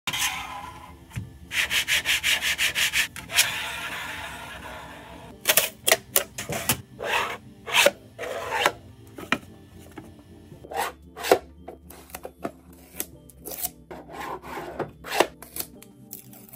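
Hands handling 3D-printed plastic drawer parts: a fast run of rubbing strokes about two seconds in, then a string of sharp clicks, knocks and short scrapes as the pieces are turned, slid and fitted.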